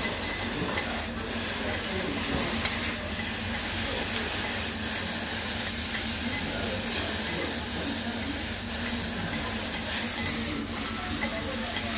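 Bean sprouts sizzling on a hot teppanyaki steel griddle, with a chef's knife and metal spatula scraping and tapping on the plate now and then as the sprouts are cut and turned.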